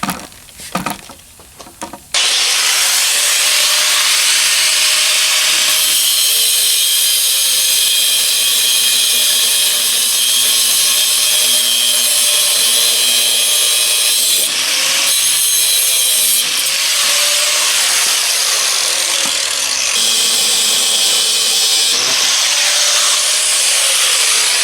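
Cutoff wheel grinding through a seized sway bar end link bolt: a few knocks, then about two seconds in a loud, steady, high-pitched grinding whine that runs on with a few brief dips.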